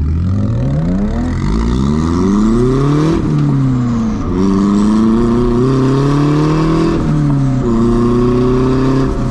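Turbocharged KA24DE four-cylinder of a Nissan 240SX, heard from inside the cabin, accelerating hard in a straight line. Its pitch climbs, then drops at upshifts about three seconds in, about seven seconds in, and again near the end.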